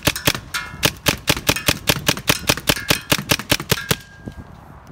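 Tacamo Vortex paintball marker, running Tippmann A5 internals, firing a rapid string of sharp shots at about six a second; the firing stops a little before four seconds in.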